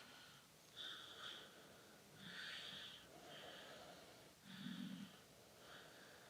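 Hands rubbing and gliding over bare skin during a back massage: a run of faint, soft swishing strokes, about one a second.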